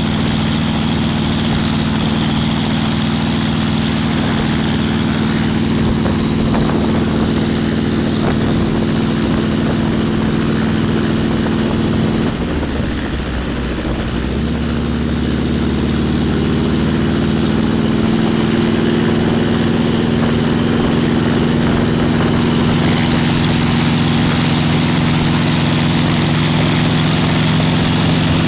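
Small helicopter's engine running steadily with its rotor turning. About halfway through, the sound briefly drops and wavers in pitch, then settles back to a steady, slightly louder run.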